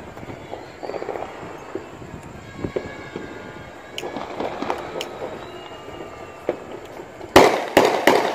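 Aerial fireworks going off at a distance: scattered pops and crackling, a sharp crack about four and again about five seconds in, then a quick run of loud bangs near the end.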